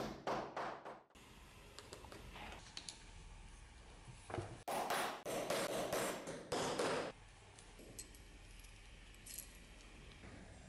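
Small hammer striking a steel hand punch on a leather belt strap on a workbench: a quick run of blows just after the start, then a longer cluster of blows about five to seven seconds in. Light metal clinking near the end as a buckle loop is handled.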